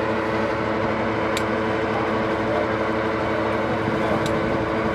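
Truck-mounted borewell drilling rig running steadily: a constant machine drone with a steady hum, and two faint ticks, about a second and a half in and near the end.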